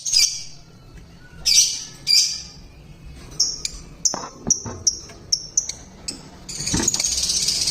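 Lovebirds calling in an aviary: three loud calls in the first couple of seconds, then a run of short sharp chirps, and from about six and a half seconds a continuous dense chatter of many birds together.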